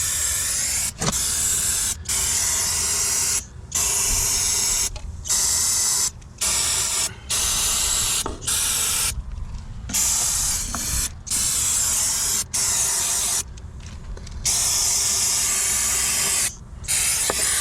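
Aerosol can of Freeze-Off penetrating oil spraying the lug nuts in about a dozen short bursts of one to two seconds each, with brief pauses between them.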